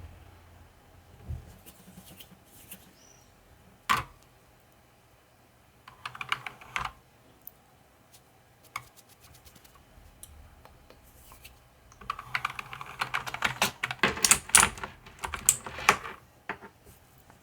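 Keys of a mechanical keyboard being typed on. First come scattered single keystrokes, one of them sharp and loud, then a short burst of typing. In the last few seconds comes a run of rapid typing.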